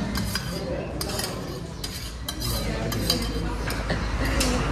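Cutlery and dishes clinking and scraping as people eat, in scattered sharp clicks over a steady low hum.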